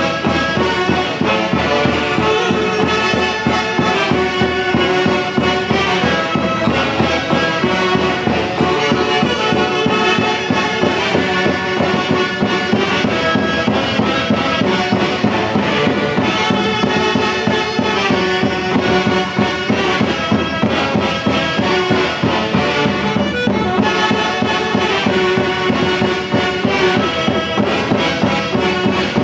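Live saxophone band from the central Andes playing: a massed saxophone and clarinet section carrying the tune over timbales, drum kit and a large bass drum keeping a steady beat.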